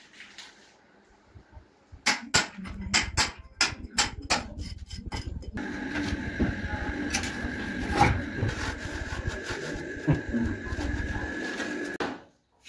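A quick series of about a dozen sharp knocks of stone slabs being worked and handled, starting about two seconds in. After that comes a steadier stretch of scraping and handling noise under a faint high whine, with one louder knock in the middle.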